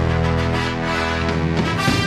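Background music holding a long sustained chord that shifts near the end.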